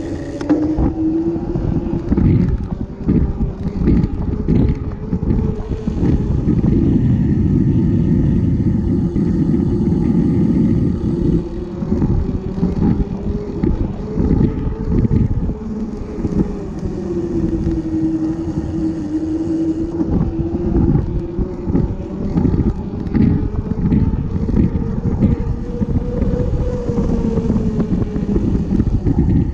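Wind buffeting the microphone of a moving camera, a gusty rumble, over a steady hum that slowly rises and falls in pitch.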